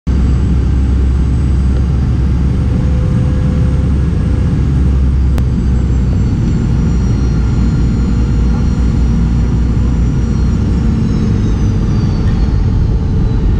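A Boeing 717's rear-mounted Rolls-Royce BR715 turbofan heard close up through the cabin window during landing: a loud steady rumble with a high fan whine. From about ten seconds in the whine falls in pitch as the engine spools down on the rollout. A single sharp click sounds about five seconds in.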